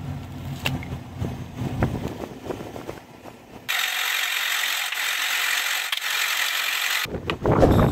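Car tyre rolling slowly over a plastic drink bottle, crunching and crackling against the asphalt with a low rumble. About 3.7 s in this gives way abruptly to a steady hiss for about three seconds, and dense crackling returns near the end.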